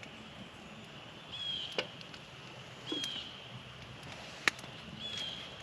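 A bird calling: short high chirps, each falling slightly in pitch, repeating about every second and a half, with a few sharp clicks between them.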